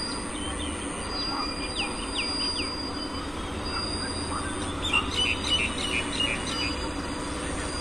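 Freight train of boxcar wagons hauled by a WAG-9H electric locomotive, a low steady rumble as it approaches. Birds chirp over it: a few falling chirps in the first half and a quick run of short calls about five seconds in.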